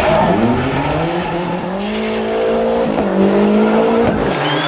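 Group A Lancia Delta rally car's turbocharged 2.0-litre four-cylinder engine accelerating hard, its pitch climbing, dipping briefly for a gear change about three seconds in, then climbing again.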